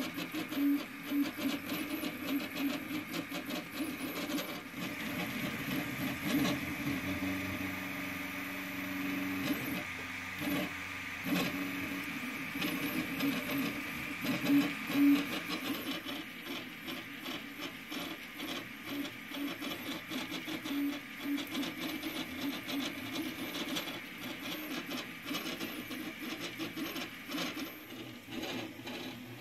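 Homemade 3D printer running a print: its stepper motors whine and buzz in quickly changing pitches as the print head moves back and forth.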